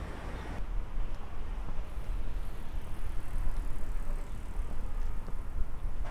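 Town street ambience with a strong, unsteady low rumble, as of distant traffic. A higher hiss cuts off about half a second in, where the street sound takes over.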